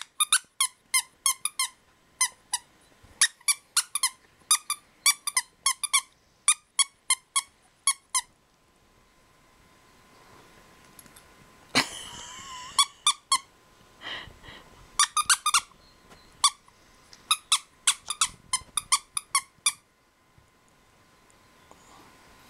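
Squeaker in a plush dog toy being squeezed by hand: quick runs of short, high squeaks, a pause of a few seconds in the middle, then more runs.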